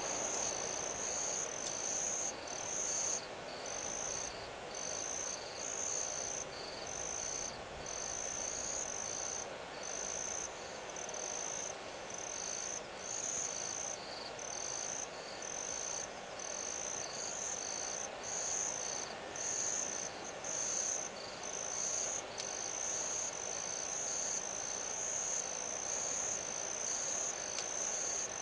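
Night insects chirping in a high, regular pulse, about one and a half to two pulses a second, over a faint steady hiss.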